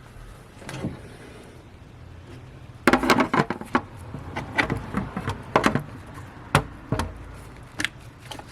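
Hand tools clicking and knocking in an irregular run while the belt tensioner is being worked on, with a dense cluster of sharp knocks about three seconds in and scattered taps after.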